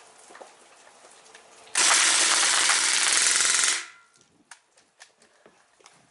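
Crosman R1 CO2 BB gun firing a full-auto burst of about two seconds, a rapid rattle of shots emptying the magazine. Light rain ticks before and after it.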